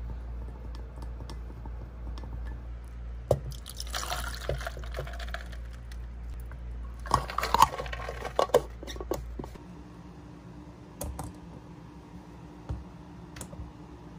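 Liquid being poured and splashing in two short spells, with sharp clicks and knocks among them. A low hum under it stops about two thirds of the way through.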